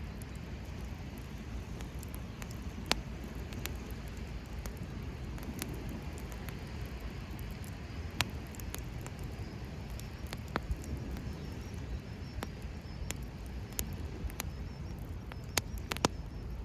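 Wood campfire crackling, with irregular sharp pops and snaps from the burning wood over a steady low rush.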